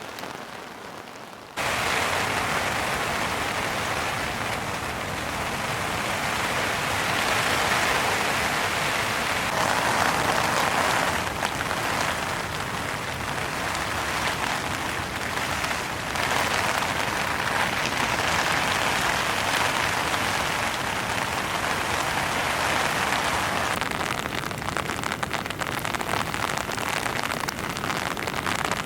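Heavy rain falling steadily, becoming suddenly louder about a second and a half in.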